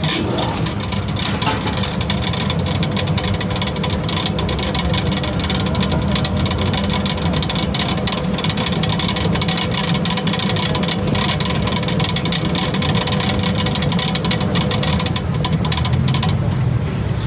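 Stainless-steel centrifugal oil spinner running steadily, its perforated basket whirling freshly fried patongko dough sticks to fling off the frying oil: a constant motor hum and whir with a dense rattle over it.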